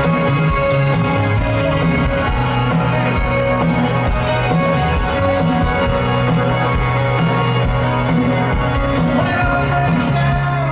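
A live rock band playing a steady drum beat under held chords.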